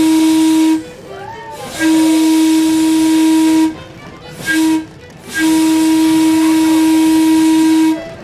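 A single-note rail whistle with a breathy hiss blows the grade-crossing signal. The end of one long blast comes first, then a second long blast, a short one, and a final long blast that stops near the end.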